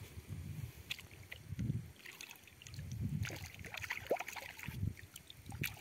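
Water splashing and sloshing as a tilapia is rinsed by hand in shallow pond water, the splashes thickest past the middle, with intermittent low rumbling underneath.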